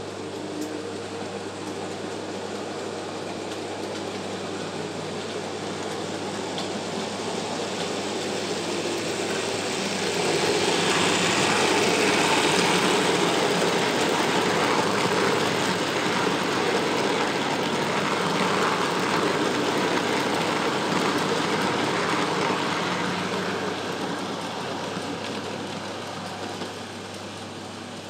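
Model freight train of boxcars and coal-loaded open wagons rolling along the track, the wheels running on the rails. It grows louder about a third of the way in as the wagons pass close, then fades in the last few seconds.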